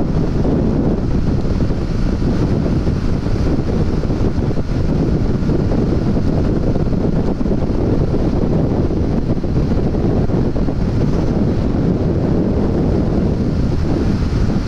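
Steady wind rush over the microphone of a Yamaha FZ motorcycle ridden at highway speed, with engine and road noise underneath.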